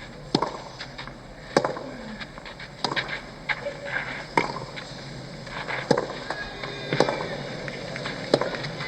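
Tennis rally: the ball is struck back and forth, with sharp pocks of racket hits and bounces about every second and a half over a steady background hum.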